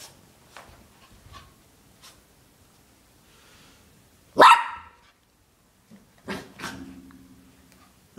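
Puppy barking at its own reflection in a mirror. One very loud, sharp bark comes about four seconds in, then two shorter barks about two seconds later, the second drawn out. Before them there are a few faint taps.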